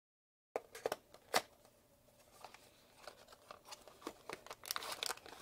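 Small paperboard retail box being opened by hand: a few sharp clicks and taps as the end flap is pulled open, then soft scraping and rustling of card as the inner box slides out, growing louder near the end.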